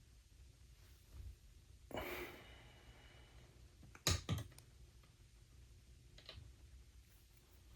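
Small hard clicks and a short scrape of metal parts being handled at a watchmaker's lathe: a brief scrape about two seconds in, then two sharp clicks close together about four seconds in, the loudest sounds, and a fainter click later.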